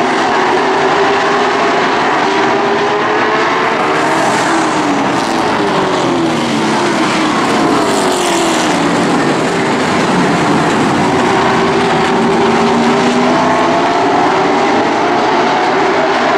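A pack of late model stock cars racing around a paved oval, their V8 engines running hard at racing speed. Between about four and eight seconds in, a car passes close by and its engine note falls in pitch as it goes by.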